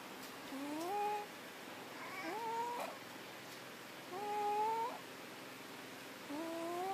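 A sleeping pet snoring, with a short rising tone on each breath, four times about two seconds apart.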